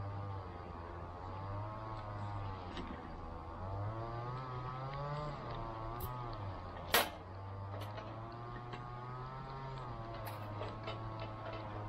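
A motor engine running steadily, its pitch drifting slowly up and down. A sharp click sounds about seven seconds in.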